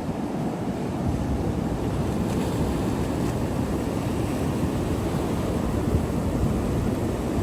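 Ocean surf breaking on a beach, with wind rumbling on the microphone; it gets a little louder about a second in.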